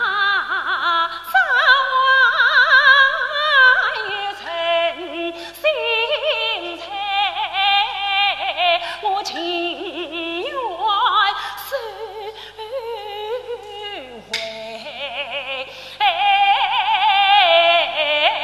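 A Yue opera female voice singing a slow aria with a fast, wavering vibrato and gliding ornaments, over instrumental accompaniment. The voice drops away briefly about two-thirds of the way through and then comes back louder.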